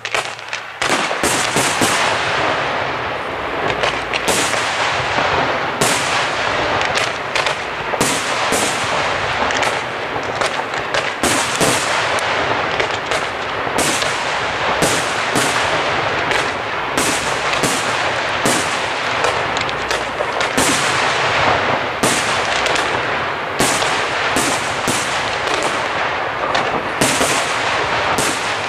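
Fireworks display: a dense, rapid barrage of aerial shell bursts, sharp bangs coming several a second over a continuous rush of noise, starting about half a second in after a brief lull.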